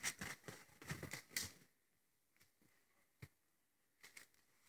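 Woven straw hat rustling and crackling as it is handled: a quick cluster of soft crackles in the first second and a half, then a few isolated clicks.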